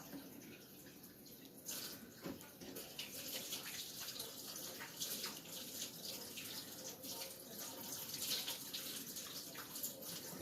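Water running from a kitchen tap and splashing as hands are washed under it, starting about two seconds in.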